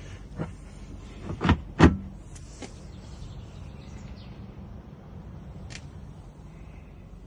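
Wooden fold-out table flap on a caravan kitchen unit swung up and knocking into place: a light knock, then two sharp wooden knocks close together, with a faint click later.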